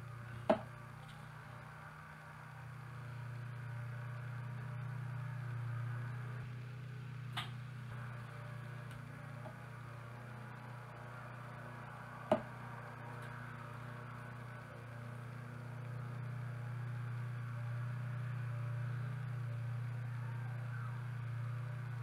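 A steady low hum with a few light clicks and taps from small parts being handled at a workbench: a glue bottle and a thin plastic rod.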